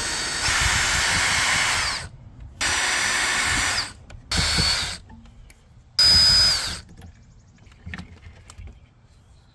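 Power drill driving out the screws of an RV door lock: four short runs of the motor, the first about two seconds long and the rest shorter, each whine dropping as the trigger is released. The last run is the loudest.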